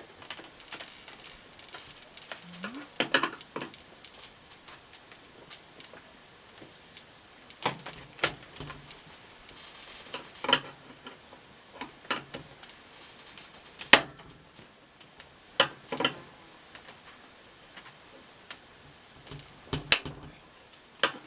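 Irregular plastic clicks and knocks from prying at the snap-in tabs that hold an old LG front-load washer's control panel. The tabs are stiff and not coming off very easy. One sharp knock stands out about two-thirds of the way through.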